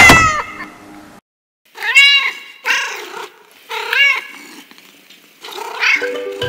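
Cat meowing: one loud meow at the start, then four shorter meows roughly a second apart, with quiet gaps between them.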